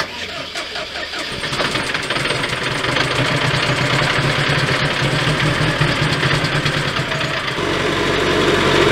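GAZ-3308 Sadko truck's engine started cold and settling into a steady idle, warming up. It gets louder and deeper near the end.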